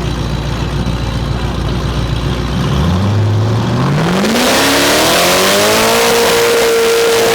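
Car engine rumbling low, then revving up under throttle about three seconds in, its pitch climbing steadily for a few seconds and then holding at high revs.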